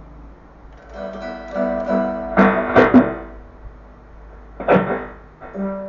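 Electric guitar with humbucking pickups played through a loud amplifier: a few notes ring out, with sharper struck attacks around the middle and once more near the end.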